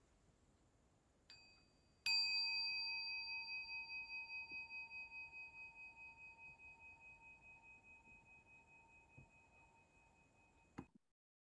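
Meditation singing bowl struck once after a faint tap. It rings with a slow wavering and dies away over about nine seconds, then cuts off abruptly with a click. The bell marks the end of a meditation sitting.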